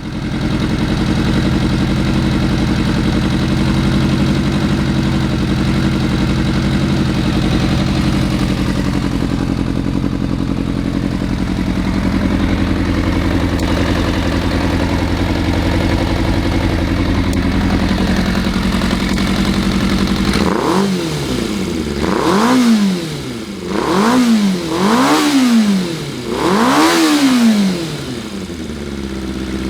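Kawasaki ZRX400 inline-four running steadily at idle through a WRS aftermarket silencer. About twenty seconds in it is revved four times, each rev rising and falling back toward idle.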